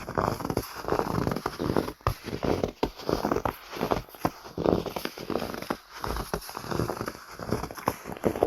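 Footsteps crunching in snow at a steady walking pace, each step a short crunch.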